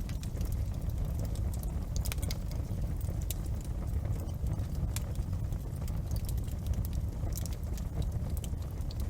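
Wood fire crackling in a fireplace: scattered sharp pops and clicks at irregular intervals over a steady low rumble of the flames.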